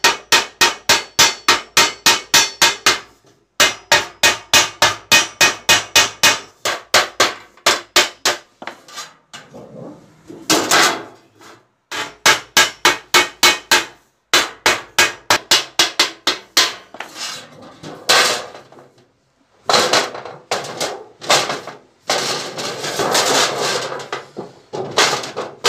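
Wooden mallet beating a thin painted sheet-metal panel along a folded edge, in runs of quick, sharp blows about four a second, broken by short pauses.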